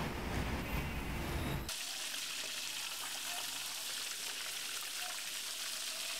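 Food sizzling in hot oil in a pan, a steady high hiss that cuts in abruptly a little under two seconds in, after a low rumble.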